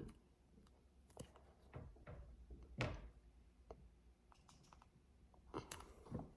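Faint, scattered knocks and clicks of small objects being handled, the loudest a thunk about three seconds in, with a few more near the end; otherwise near silence.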